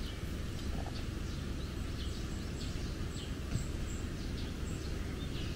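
Wild birds chirping outdoors: short, high, downward chirps repeating about two a second over a steady low background noise.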